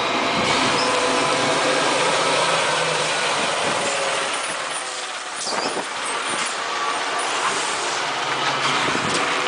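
Diesel engine of a Mercedes-Benz tanker truck running steadily as the truck rounds a hairpin bend and passes close by, with tyre and road noise. A brief hiss about halfway through sounds like its air brakes.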